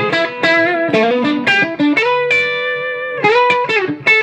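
Electric guitar with its bridge humbucker coil-split, played through a restored 1939–40 Gibson EH-185 tube amp: a single-note lead line with string bends, one bent note held for about a second near the middle.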